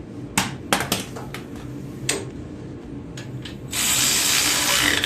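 Socket ratchet wrench tightening the belt tensioner bolt on a Wheel Horse garden tractor: a few separate clicks, then a loud fast rasping run of ratcheting lasting about a second near the end.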